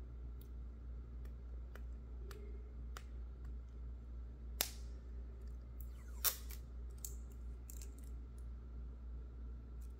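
Fingernail picking at and peeling the stuck protective plastic film off the edge of a new smartphone: scattered small clicks and scratches, with two sharper snaps of the film about four and a half and six seconds in. A steady low hum runs underneath.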